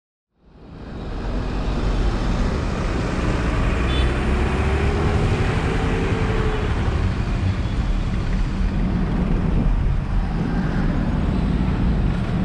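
Road noise of a car driving through city traffic: a steady rumble of engine and tyres with surrounding traffic, fading in over the first second or two.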